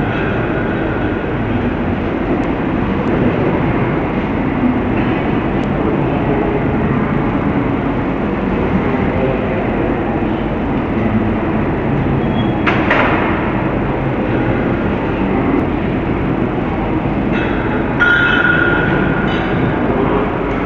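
Steady, loud rumbling noise, with a short screech about two-thirds of the way through and a high squeal near the end.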